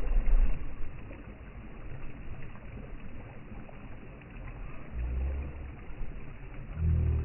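Ocean waves washing in a steady rush, with louder low rumbles at the start and again about five and seven seconds in.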